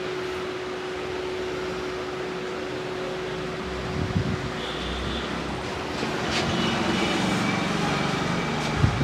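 Steady hum of roadside street traffic, with a few dull low thumps about four seconds in and again near the end, and brief faint high tones in between.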